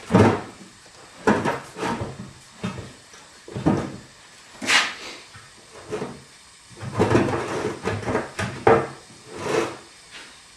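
Irregular knocks, thumps and rubbery scuffs as a heavy 22.5-inch truck tire is set onto a steel wheel and its bead started down over the rim lip.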